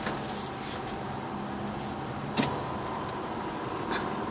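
Cabin noise of a 2007 Subaru Forester driving on a snow-covered road: its flat-four engine and the tyres on packed snow run steadily, broken by two sharp knocks, one about halfway through and a louder one near the end.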